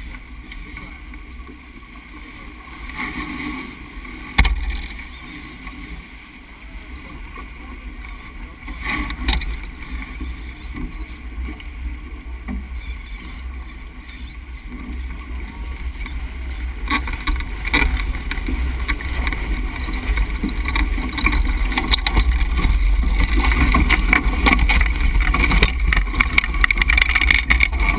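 Wind buffeting the microphone and water rushing along a Beneteau 36.7 sailboat heeled hard over, growing louder through the second half as the boat is knocked down and foaming water washes over the microphone. A single sharp knock about four seconds in.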